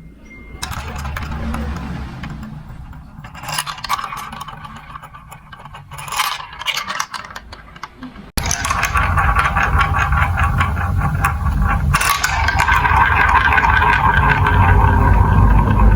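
Marbles rolling and clattering down a building-block marble run track. Scattered clicks and rattles at first, then, after an abrupt cut just past halfway, a continuous dense rolling rattle of many marbles with a low rumble, growing louder.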